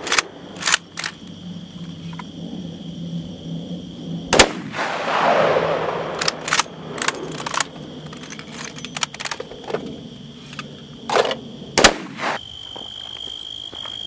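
Gunshots fired at an uneven pace, about fifteen in all, some loud and some fainter. The loudest comes about four seconds in and is followed by a rolling echo.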